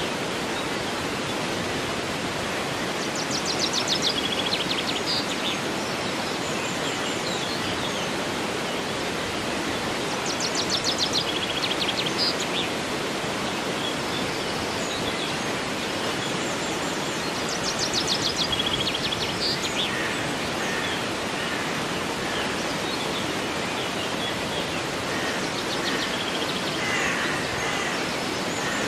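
Steady rush of flowing river water, with a songbird singing a short, rapid, high trilled phrase four times, about every seven seconds.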